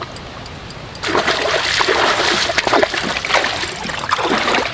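A hooked fish thrashing at the surface of shallow water as it is drawn in on a spinning rod. Loud, irregular splashing breaks out about a second in and keeps going until near the end.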